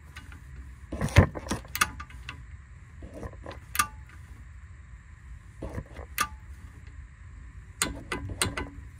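Torque wrench on a 15 mm socket working a tie rod end nut: scattered sharp metallic ratchet clicks, a cluster about a second in, two single clicks mid-way and another cluster near the end, as the nut is brought up to 35 foot-pounds.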